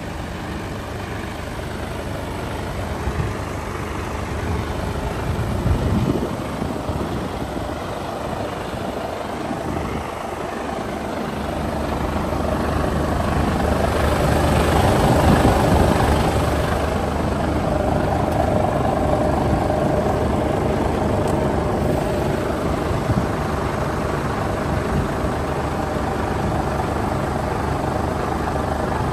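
Mercedes-Benz Actros 1842 tractor unit's six-cylinder diesel engine idling steadily, louder for a few seconds about halfway through.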